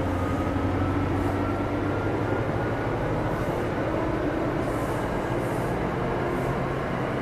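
NJ Transit passenger coaches rolling past on the rails with a steady rumble, the departing locomotive's low hum fading over the first few seconds. A faint hiss from the wheels comes and goes every second or so.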